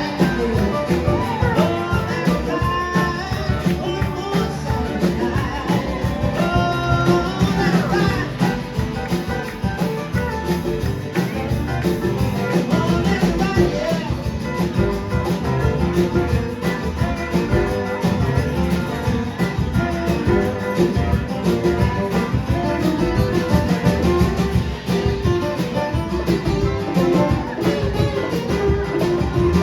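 A band playing a song: guitar with singing over it.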